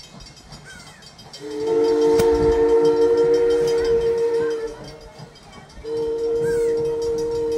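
Steam locomotive's chime whistle blowing two long blasts, each sounding several notes at once, with a short gap between them.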